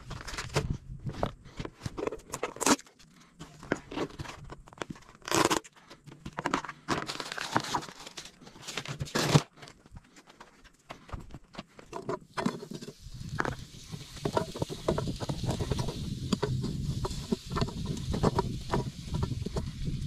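Plastic bags crinkling and rustling as food is handled and unpacked, with sharp irregular clicks and knocks. In the last third a steadier low rumble with many small crackles takes over.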